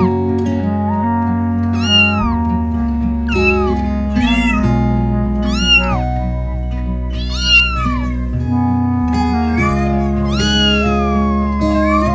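Cat meows over background music. There are several short rising-and-falling meows every second or two, and one longer, drawn-out meow near the end.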